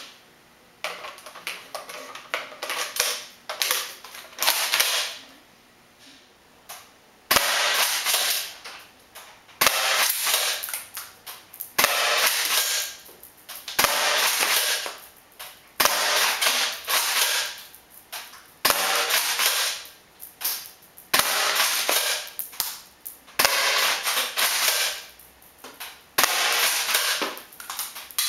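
Double Eagle M56c spring-powered airsoft pump shotgun being loaded, then fired about nine times at a steady pace, a sharp shot every two to two and a half seconds. Each shot is followed by about a second of rattling as the pump is worked to cock the spring for the next shot.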